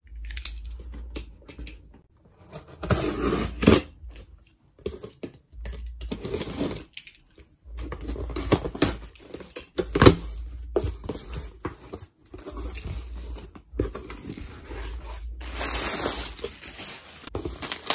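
Packing tape on a cardboard box being cut and torn open and the cardboard handled, in irregular scrapes, rips and taps with short pauses. Near the end, plastic air-pillow packing crinkles as it is pulled out of the box.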